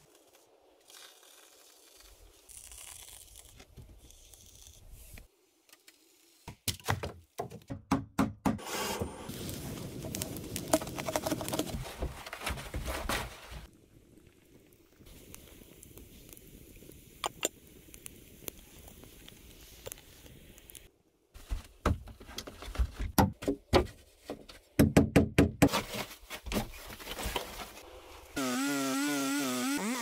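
Hand work with wood and tools: clusters of knocks, taps and scrapes, loudest in two runs around a third of the way in and again past the middle. Near the end a short wavering hum with a clear pitch comes in.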